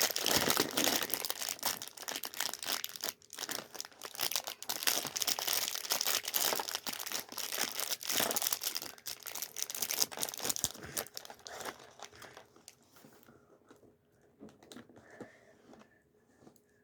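Packaging from a Lego advent calendar crinkling and tearing as it is opened: dense crackling for about twelve seconds, then dying down to a few faint clicks near the end.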